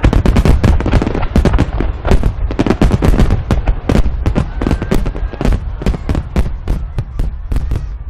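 A rapid, irregular run of loud cracks and bangs, several a second, thinning out near the end.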